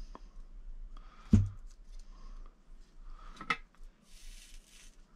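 Small tools and wires being handled at a soldering bench: a few clicks, a sharp knock about a second and a half in, and a brief rustle near the end, over a low steady hum.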